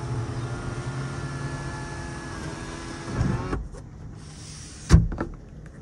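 Lexus electric sunroof motor running steadily as the sunroof closes, stopping about three and a half seconds in as the panel seats. A single sharp click follows about a second later.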